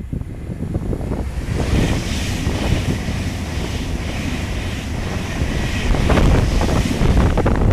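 Class 390 Pendolino electric train passing: a rushing noise of wheels on rail and air that builds about a second and a half in and holds until near the end, over wind buffeting the microphone.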